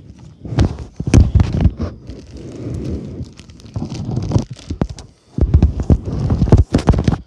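Clear plastic wallet and laminated picture cards being handled close up: irregular, loud crinkling and rustling with sharp crackles.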